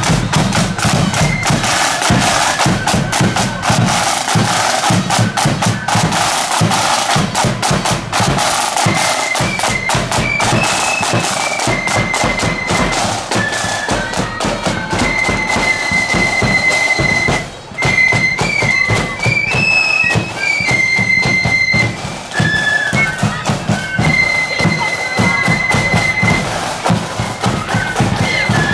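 Marching flute band playing on the march: drums keep up a rapid beat throughout, and the flutes' high melody comes in about nine seconds in.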